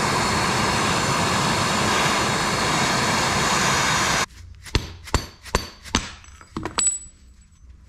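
A handheld gas torch burning with a steady hiss for about four seconds as it heats the old rubber bushing on a Corvair rear strut rod, then cutting off abruptly. About six sharp mallet blows follow, knocking the old bushing off the strut rod, the last with a brief high ring.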